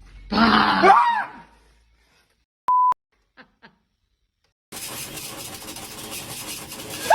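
A person cries out in fright about half a second in, a short loud yell that rises and then falls in pitch. It is followed a moment later by a short steady electronic beep. From about two-thirds of the way through, steady room noise comes in.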